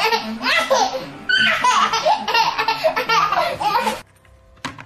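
A small child laughing in repeated bursts, which stop abruptly about four seconds in.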